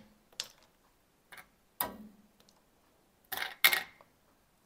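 Ice cubes being added to a glass of iced tea: a few scattered clinks, with two louder clinks about three and a half seconds in.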